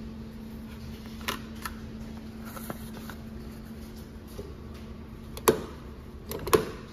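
A steady low hum with a few sharp clicks or knocks; the two loudest come about five and a half and six and a half seconds in.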